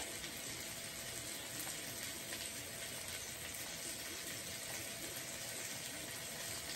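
Chicken breast pieces sizzling steadily as they sear in a hot frying pan.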